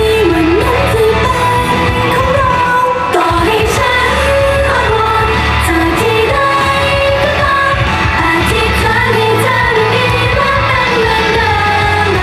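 Live Thai idol pop performance: female voices singing into handheld microphones over loud pop backing music with a steady low beat, played through the stage PA.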